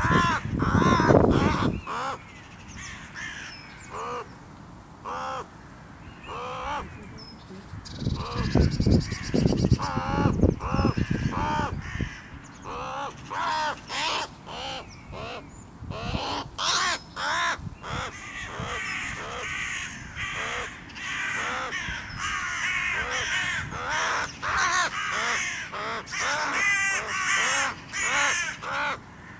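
A crow giving harsh caws over and over while it fights off a northern goshawk that has it in its talons. There are two spells of loud low rumbling, one at the start and one about eight seconds in.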